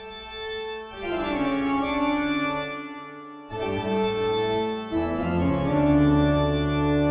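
Organ music playing slow, held chords that change every second or two.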